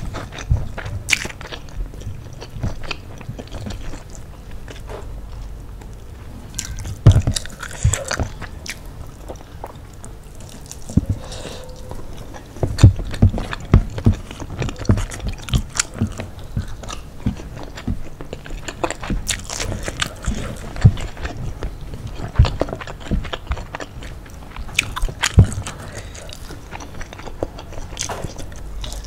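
Close-miked eating: chewing and biting into fried chicken and rice, with sharp, irregular crunching clicks and mouth sounds.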